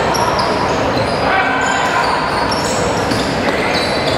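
Basketball dribbled on a hardwood court, with short high squeaks of shoes and the steady chatter of a crowd in a large sports hall.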